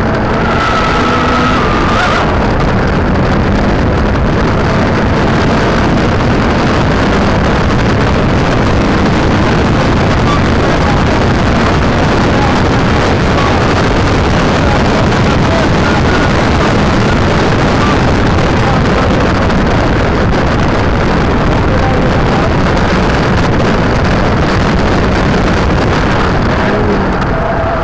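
A car's engine under hard acceleration, recorded onboard through a small keychain camera's microphone. For most of the time it is buried under loud, steady wind and road noise. The engine note stands out about two seconds in and again near the end, where its pitch climbs.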